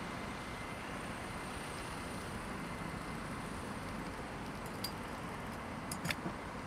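Steady city road traffic: cars driving through a junction, with low rumble throughout. A few brief sharp clicks come about five and six seconds in.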